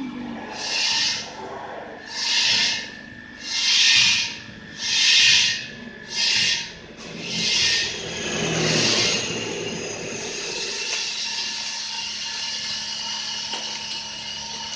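About seven rasping, hissing strokes, each about a second long and about one every 1.3 seconds, stopping about nine seconds in. Under them runs the steady hum of a vacuum membrane laminating press with its heater on, which goes on alone after the strokes end.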